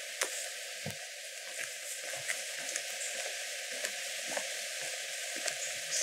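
Light rain falling: a steady hiss with many small ticks of drops landing close by. Soft low thumps come about once a second.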